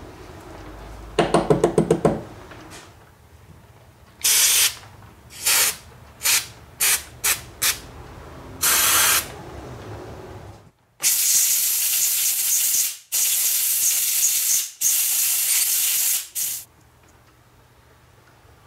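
An aerosol can of cleaner sprays through a red extension straw into a disassembled Stihl 036 chainsaw carburetor. There are several short hissing bursts, then three long blasts in a row in the second half. A brief quick rattle of about eight clicks comes about a second in.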